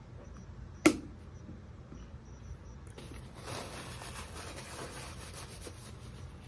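A single sharp knock a little under a second in, as a hot sauce bottle is set down on the table. From about three seconds in comes the rustling rub of a paper napkin wiping a mouth and being crumpled.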